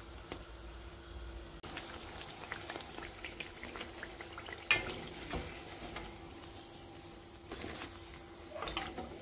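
Gram-flour-battered potato slices deep-frying in hot oil, a steady crackling sizzle full of small pops. A single sharp knock about halfway through.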